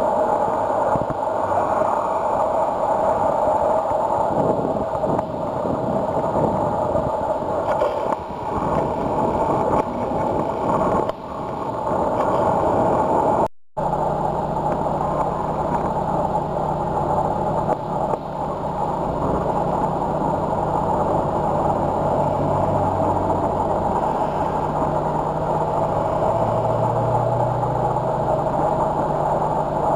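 Steady road traffic noise: vehicles passing on a dual carriageway, tyres and engines. After a cut about fourteen seconds in, a steady low engine hum joins the traffic noise.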